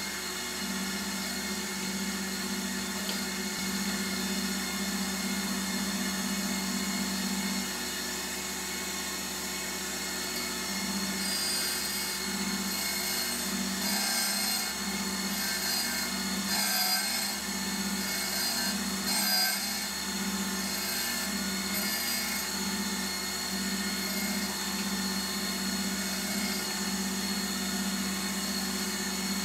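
LIP 515 benchtop surface grinder's spindle motor running with a steady hum, its motor and grinding wheel not yet balanced. From about eleven seconds in, the wheel grinds across the workpiece on each pass of the table, giving a hissing grind that comes and goes for about ten seconds.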